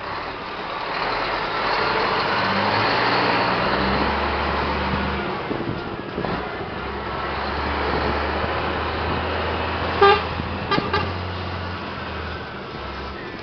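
Scania 124 truck's diesel engine pulling on the road, its note stepping up and down as the driver changes gear. About ten seconds in, the horn sounds one short blast, then two quicker toots.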